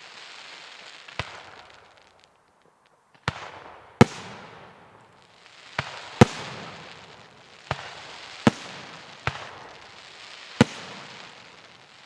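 Firework display shells bursting one after another, about nine sharp bangs, each trailed by a fading crackling hiss, with a short lull between the second and third.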